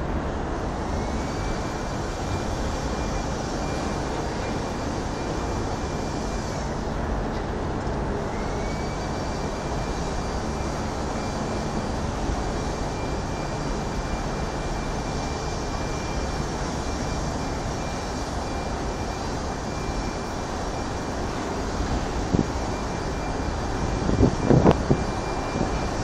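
Steady low rumble of distant city traffic, with a faint steady high whine over it. A few sharp thumps come near the end.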